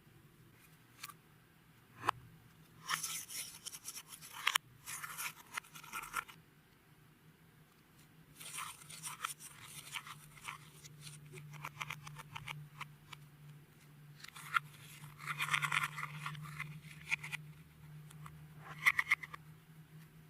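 Clear slime with beads mixed in, being squished and worked by hand, crackling and crunching in several bursts with short pauses between them. A faint steady low hum runs underneath.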